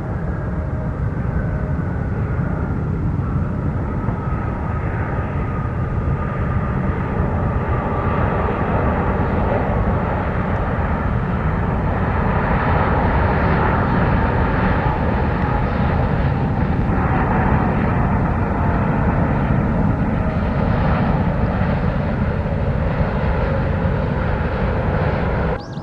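Jet airliner's engines passing close: a loud, steady rush with a thin whine that slowly falls in pitch, swelling toward the middle and cutting off suddenly at the end.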